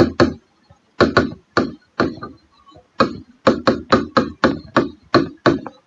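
Marker pen writing on a whiteboard: an uneven run of short, sharp taps and scratches as the letters are drawn, with a pause of about a second near the middle.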